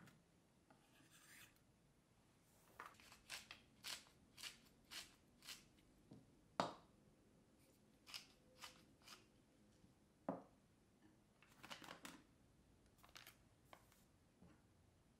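Knife slicing green beans on a wooden cutting board, about two cuts a second for a few seconds. Then comes a sharp knock, the loudest sound, followed by short bouts of clicking from a wooden pepper mill being twisted and a second knock.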